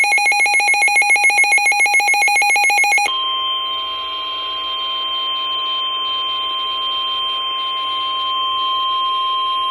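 Weather radio alert: about three seconds of rapid electronic beeping, then the steady NOAA Weather Radio 1050 Hz warning alarm tone, which marks the start of a warning broadcast (here a flood warning).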